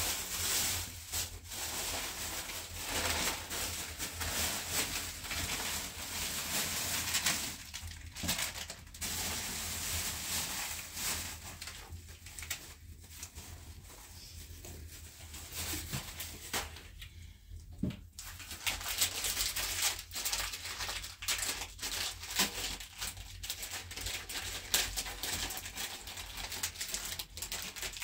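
Irregular rustling and crinkling with many light clicks and taps, over a steady low hum.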